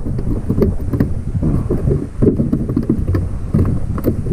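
Wind rumbling on the microphone aboard a boat, with a few sharp knocks as a slippery mahi-mahi is grabbed while it flops on the deck.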